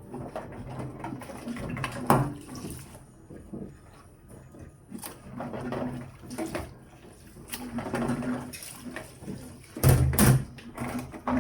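Kitchen cleaning: water at the sink and irregular clatters of dishes and utensils, with the sharpest knocks about two seconds in and near the end.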